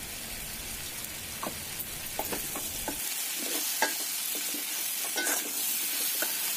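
Vegetables sizzling in oil in a stainless steel kadai, with a metal utensil scraping and clinking against the pan as they are stirred. The clinks come more often from about halfway.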